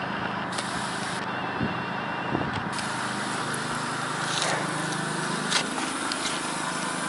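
Tempstar N4H3 heat pump hissing steadily as refrigerant pressures equalize after the compressor has shut off, over a low steady hum, with a few faint clicks.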